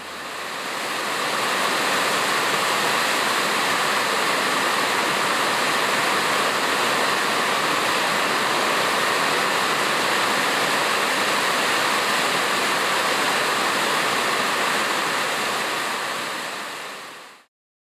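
Heavy rain pouring down, a steady hiss that fades in over the first second or two and fades out near the end.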